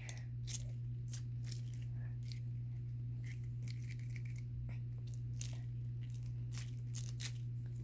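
Water snake fidget toy (a water-filled vinyl tube) being squeezed and slid through the hands, giving scattered soft plastic squeaks and small clicks at irregular moments, over a steady low hum.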